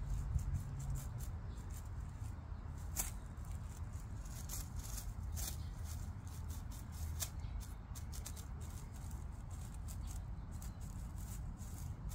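Soft rustling and scattered small crackles of long grass-like leaves as a cat pushes into the clump, over a low steady rumble.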